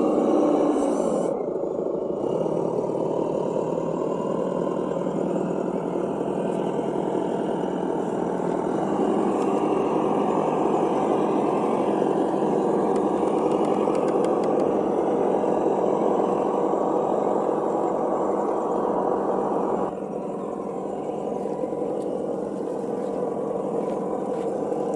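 Simulated truck engine sound from the RC crawler's Reely sound module, running steadily through its small onboard speaker, dropping a little in level about twenty seconds in.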